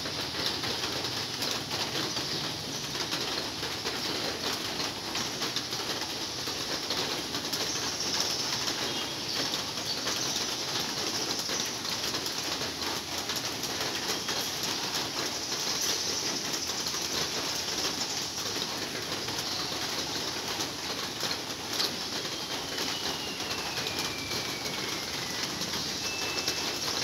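Heavy rain falling on a large roof, a steady dense hiss heard inside a big hall. Near the end a bird gives a thin, falling whistle.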